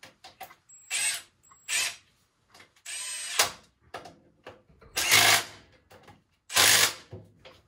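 Small cordless power tool run in five short bursts of under a second each, its motor whining briefly with each trigger pull.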